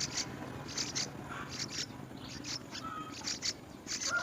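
Small birds chirping: short, very high, thin chirps, mostly in quick pairs, repeating about once a second.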